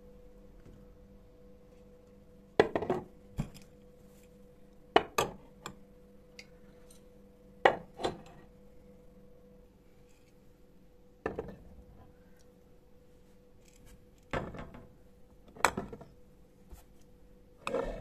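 Glass storage jars being set down on and moved along a cabinet shelf: a series of separate knocks and clinks, one every couple of seconds. A faint steady hum runs underneath.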